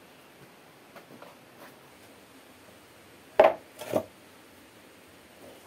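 Two loud knocks of a hard object, about half a second apart, midway through. A few faint light clicks come before them.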